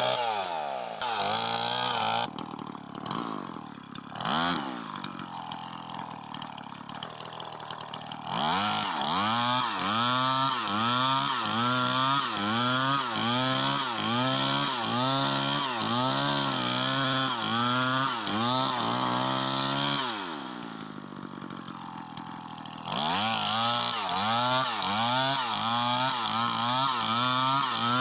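Two-stroke chainsaw engine revving up and down quickly over and over, dropping back to a lower idle twice: once a couple of seconds in for about six seconds, and again about twenty seconds in for a few seconds.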